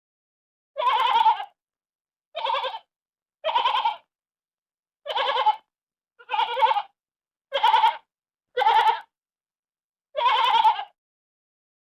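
Sheep bleating: eight short, quavering bleats of about half a second each, spaced one to one and a half seconds apart with silence between them.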